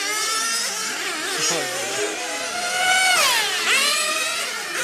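Several 1/8-scale nitro RC cars' small two-stroke glow engines whining at high revs, their pitches rising and falling as they accelerate and brake. About three seconds in, one car passes close, its pitch sweeping up and then dropping sharply.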